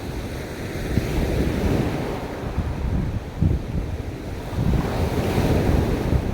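Sea waves washing onto a beach, with wind buffeting the microphone as a gusty low rumble. A wave breaks and hisses up the shore about five seconds in.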